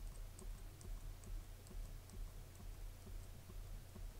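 Faint, regular clicking at a computer, about two to three clicks a second, each one advancing to the next photo in a burst sequence, over a low steady hum.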